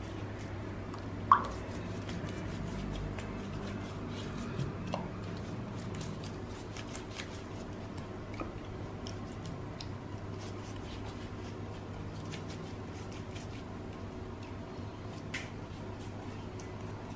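Pastry brush dabbing egg wash onto raw puff-pastry parcels on a metal baking tray: soft dabs and small scattered clicks, with one sharp tap about a second in, over a steady low hum.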